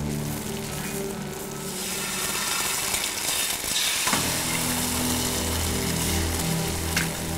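Eggs frying in a pan, a steady sizzle, over slow background music with held low notes. A single sharp click comes near the end.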